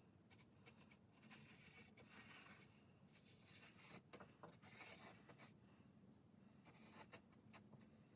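Faint, irregular scratching of a marker tracing an outline while marking out a sheet-metal patch panel, heard over near silence.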